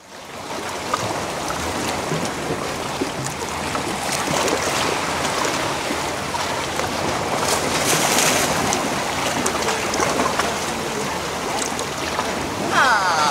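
Sea water lapping and washing against shoreline rocks: a steady wash that swells briefly about eight seconds in.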